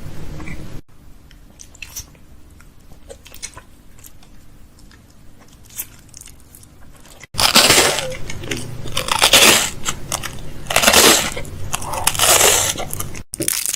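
Close-miked ASMR mouth sounds: sparse faint clicks, then from about seven seconds in a run of loud, crunchy, chewing-like bursts.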